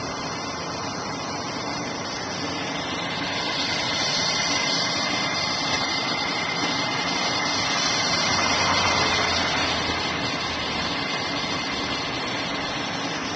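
Steady road-vehicle noise that swells between about four and nine seconds in as a vehicle goes by, with a faint steady whine underneath.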